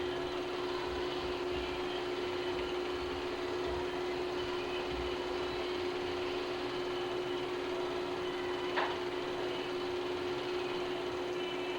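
Steady machine hum on one pitch over a constant hiss, with a single faint click about nine seconds in.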